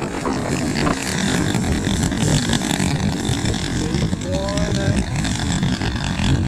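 Strong wind buffeting the microphone, over the twin engines of a large radio-controlled PBY Catalina model running as it rolls across a grass field.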